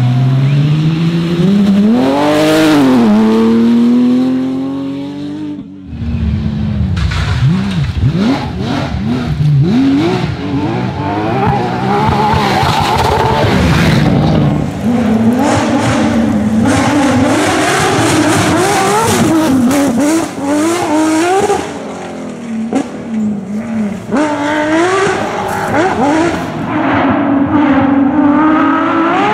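Porsche 911 GT3 rally car's flat-six engine at full throttle, its note climbing steadily through the revs. The sound cuts about six seconds in to another stretch, where the engine's pitch repeatedly drops and climbs again as it brakes, blips and accelerates through the gears, with short sharp noises mixed in.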